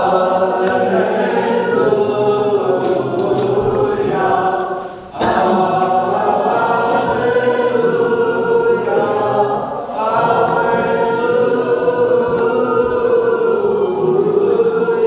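Voices singing unaccompanied liturgical chant in long held phrases, breaking briefly about five seconds in and again about ten seconds in.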